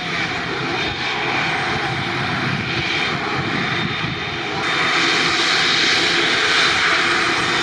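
Twin turbofan engines of a Japan Airlines Boeing 787 at taxi power: a steady rushing whine with high tones, growing louder about five seconds in as the jet taxis close past.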